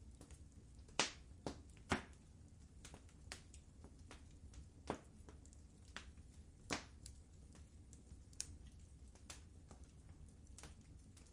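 Wood fire crackling in a fireplace: irregular sharp pops and snaps, the loudest about a second and two seconds in and again near seven seconds, over a soft low rumble of the burning fire.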